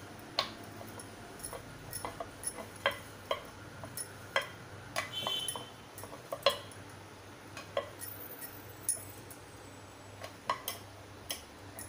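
Irregular light clicks and clinks of a rolling pin knocking against a round metal rolling board while thin dough is rolled out.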